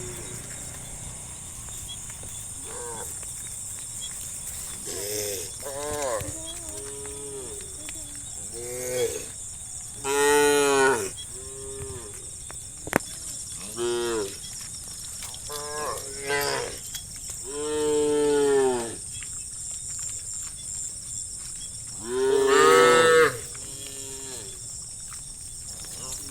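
Several cows in a herd mooing, one call after another and sometimes overlapping, with a few long, loud moos standing out among shorter, fainter ones.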